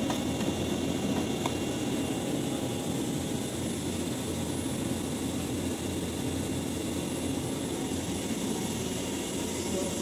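Steady machine hum and rush of air from running cooling units and fans in an electrical equipment room, unchanging throughout.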